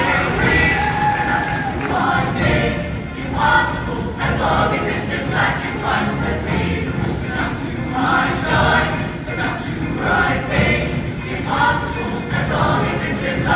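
Large show choir singing together in full voice over instrumental accompaniment with a steady beat.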